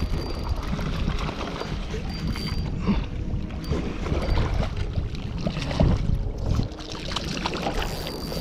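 Wind buffeting the microphone over water moving around a kayak, with irregular splashes and knocks while a hooked fish is being fought.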